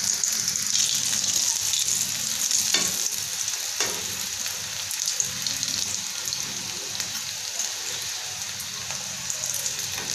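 Potato-stuffed flour rolls deep-frying in hot oil in a metal karahi: a steady sizzling hiss. A metal spatula stirs them, with two light clicks about three and four seconds in.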